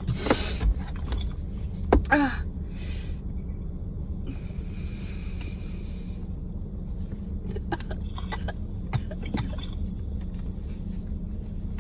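A person's sharp coughs or sneezes, a reaction to a nasal swab up the nose: one burst at the start and another about two seconds in, then a longer breathy hiss.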